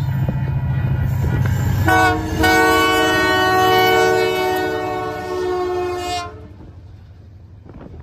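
Diesel freight locomotive passing close with its engine rumbling, then its multi-note chord horn sounds about two seconds in: a short blast, then a long blast of about four seconds that cuts off. The lit boxcars then roll past more quietly.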